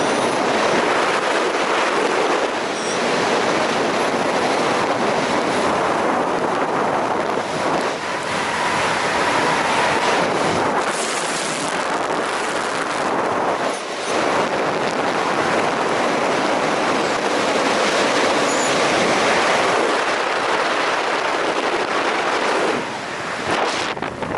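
Loud, steady rush of wind over the microphone in skydiving freefall, with brief dips now and then.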